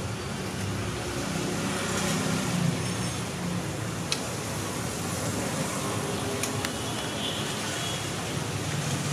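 Steady background din with a low hum and a few light clicks scattered through it.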